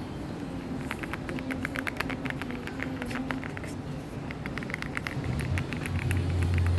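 Typing on a mechanical keyboard: quick runs of key clicks, several a second, with a short pause in the middle. A low hum comes in near the end.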